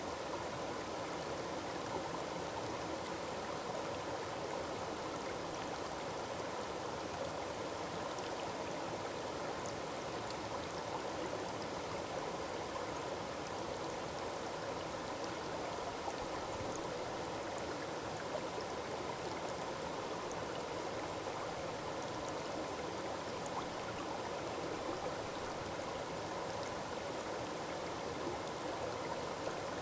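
Forest waterfall with the steady rush and splash of falling water, even throughout.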